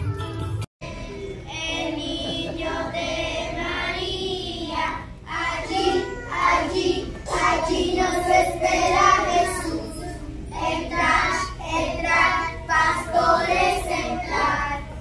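A group of young children singing together, with a brief dropout just after the start.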